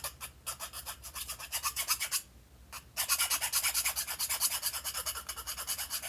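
Needle file rasping with short, rapid back-and-forth strokes, deburring the edges of a freshly milled square hole in a tube. There is a brief pause a little past two seconds in.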